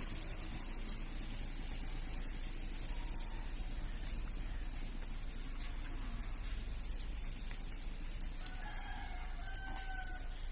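A rooster crowing in the background near the end, over a steady hiss, with short high chirps of small birds scattered throughout.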